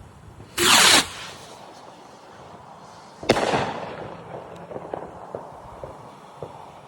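Firework going off: a loud hiss lasting under half a second, then a sharp bang about three seconds in, followed by a scatter of small crackling pops.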